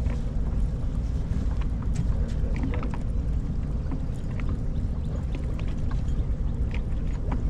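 A fishing boat on the river: a steady low rumble with scattered light ticks and knocks.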